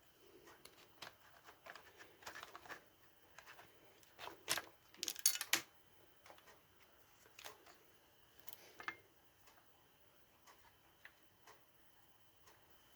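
Scattered light clicks, taps and small knocks of hand tools and plastic and metal parts being handled while a cordless circular saw is taken apart, with a quick run of louder clicks about five seconds in.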